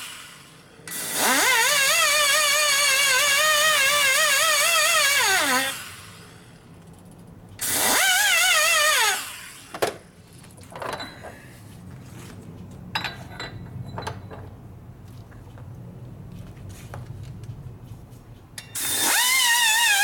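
Die grinder porting a shovelhead cylinder head. It spins up to a high whine whose pitch wavers as the bit cuts, winds down about six seconds in, and gives a shorter burst a couple of seconds later. Then come light clicks of handling over a low hum, and the grinder starts up again near the end.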